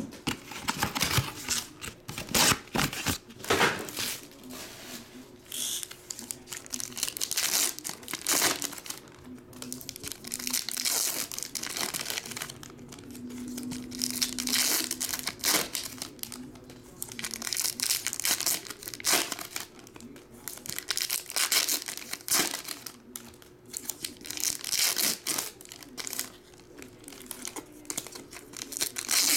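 Foil wrappers of 2023 Topps Chrome baseball card packs being torn open and crinkled, in repeated irregular bursts of crackling rustle.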